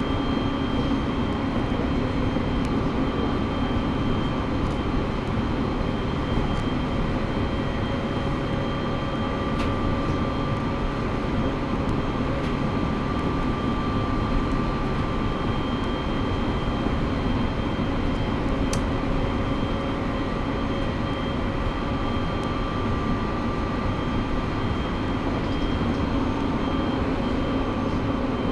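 Running sound heard inside a JR East 701 series electric train cruising at a steady speed: an even rumble of wheels on rail under a steady hum of several fixed tones that neither rise nor fall.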